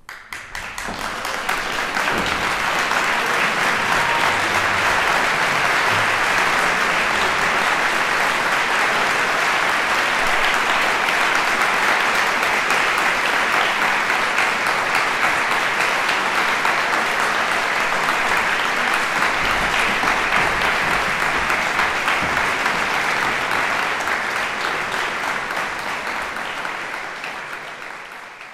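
Concert audience applauding, many hands clapping in a dense, steady mass that starts abruptly and tapers off near the end.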